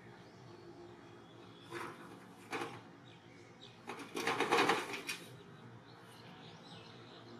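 Macaques scrambling on a corrugated metal roof: two short knocks, then a louder clatter of rapid footfalls on the tin about four seconds in that lasts about a second.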